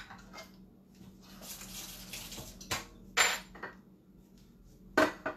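Kitchen clatter: a short rushing hiss, then a few sharp clinks and knocks of dishes and utensils. The loudest comes about three seconds in, and two more come near the end.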